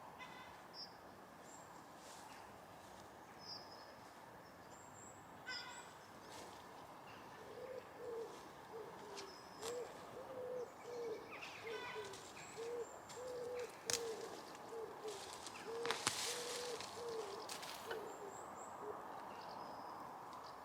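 A bird calls a long run of short, low notes, about two a second, starting about seven seconds in and stopping near the end. High chirps from small birds and a few sharp knocks and rustles are heard alongside.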